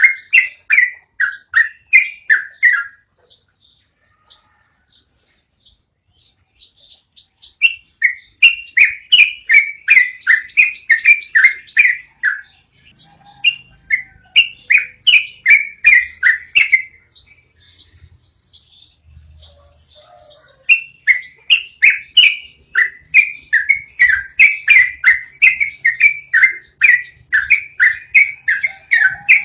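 Yellow-vented bulbul (trucukan) singing long rolling runs of quick, repeated notes, about three or four a second, in several bouts broken by short pauses.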